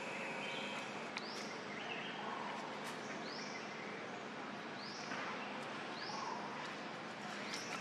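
Outdoor ambience with a steady background hiss, over which a bird repeats a short, high, arching call every second or two.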